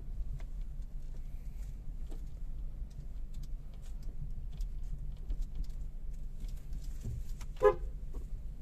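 Low steady rumble of a car's engine and tyres heard from inside the cabin as it moves off slowly, with one short horn toot near the end.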